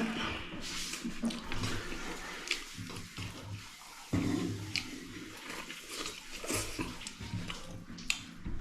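Close-up eating sounds: a person chewing and smacking on a mouthful of chicken and rice, with irregular wet mouth noises and small clicks.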